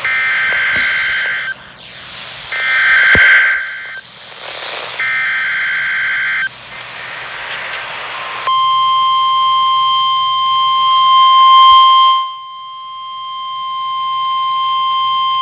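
NOAA Weather Radio Required Weekly Test: three short bursts of buzzy SAME digital header data, about a second apart. Then, about eight seconds in, the steady single-pitch weather-radio warning alert tone starts and holds.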